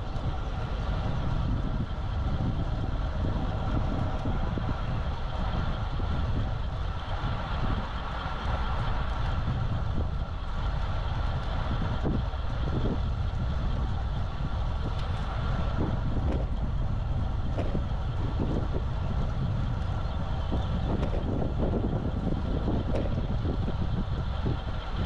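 Wind buffeting the microphone of an action camera riding on a moving road bike: a steady low rumble with a hiss over it, and a few faint ticks now and then.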